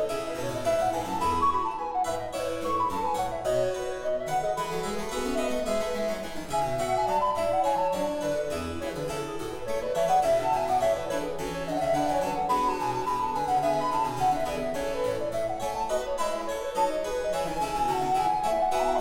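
Two recorders and a harpsichord playing a fast Baroque trio sonata movement. The recorders trade quick running scales that climb and fall over the harpsichord's plucked accompaniment.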